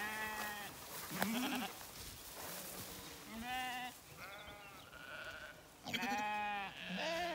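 Zwartbles sheep bleating, about six calls one after another, the loudest about six seconds in.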